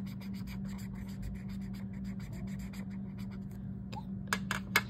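Felt-tip marker scribbling on lined notebook paper in quick scratchy strokes. Two sharp clicks near the end.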